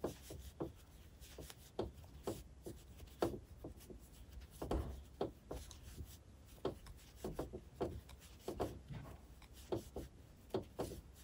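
Crochet hook and super-bulky yarn rubbing against each other as loops are pulled up for a puff stitch: faint, irregular soft scratches and brushing, many short strokes.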